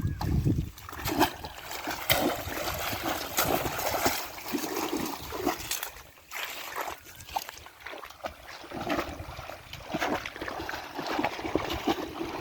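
Irregular splashing and sloshing of shallow pond water, many small splashes in quick succession.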